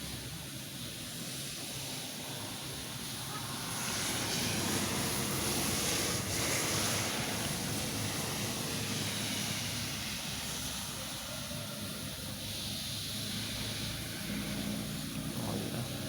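Rain falling steadily, a continuous hiss that grows louder from about four seconds in, then eases off again.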